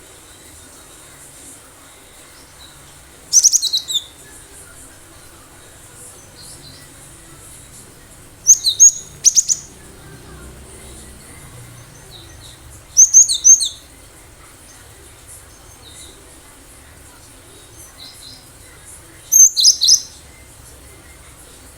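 Cinereous tit (gelatik batu) singing: four short bursts of rapid, high, repeated notes a few seconds apart, with a few faint notes between them.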